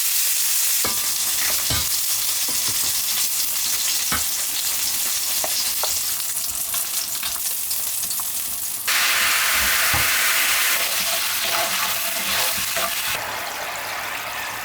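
Chicken pieces deep-frying in hot oil: a steady sizzle with a few light clicks and knocks of a utensil. The sizzle turns abruptly louder about nine seconds in and drops back near the end.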